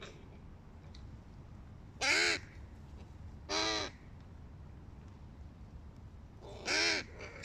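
Hooded crows cawing: three short caws, two close together about two seconds in and a third near the end.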